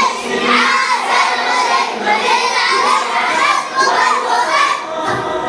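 A large group of young schoolchildren's voices, loud and overlapping, shouting and singing together.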